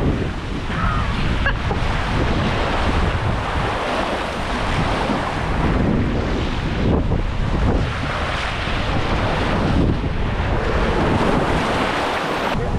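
Loud, steady rush of water with heavy wind buffeting on the microphone.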